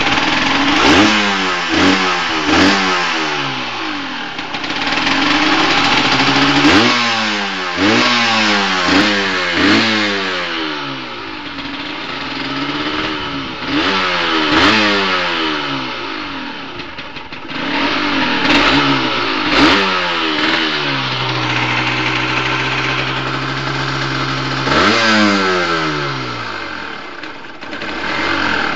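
Derbi GPR 125 motorcycle engine through its stock exhaust, revved again and again in quick throttle blips that rise and fall in pitch. It settles into a steady idle for a few seconds past the middle, then is blipped again near the end.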